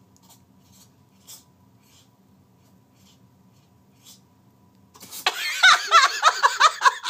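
Faint room tone with a few small soft clicks, then about five seconds in a person bursts into loud laughter in quick, pulsing bursts.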